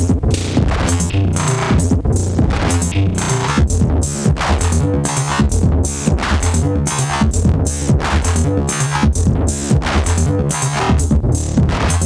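Eurorack modular synthesizer patch playing a steady electronic rhythm: percussive hits over a pulsing bass, run through the Joranalogue Delay 1 short-delay module while its knobs are turned.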